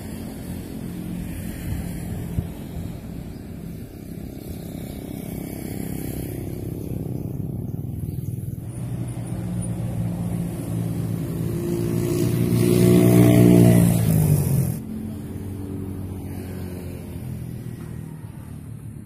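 Engine of a passing road vehicle, running throughout and growing louder to a peak about twelve to fourteen seconds in, then dropping away sharply.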